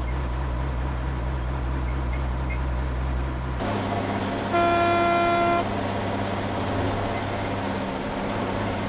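Truck engine running at a steady low drone inside the moving cab; a little over three seconds in, the sound changes to a vehicle driving along a road. About a second later a vehicle horn sounds once for about a second.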